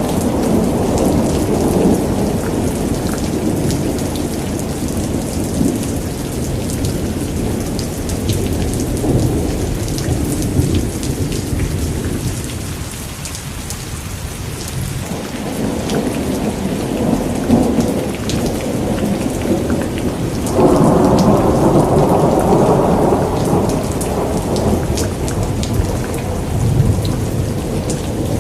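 Steady heavy rain with rolling thunder. The rumbles swell and fade, and a louder peal breaks in suddenly about two-thirds of the way through and rolls on for several seconds.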